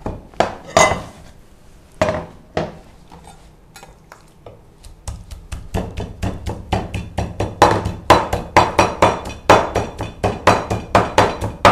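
A steel cleaver chopping small raw fish on a round wooden cutting board. A few separate knocks come first, then about halfway through the chopping settles into a fast, even run of about four strokes a second.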